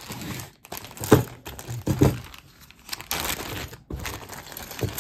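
Packaging crinkling and rustling as it is handled and opened, with two louder bumps about one and two seconds in.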